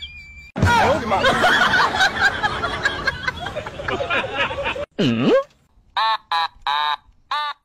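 Laughing and snickering. A single swooping pitch glide dips and rises about five seconds in, and several short bursts of snickering follow near the end.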